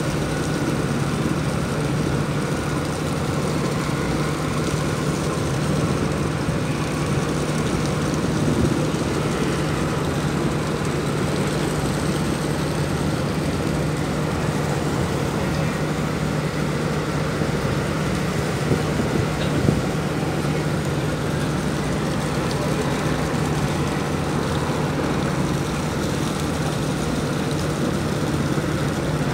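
A ship's engine running with a steady, even drone, mixed with wind and sea noise.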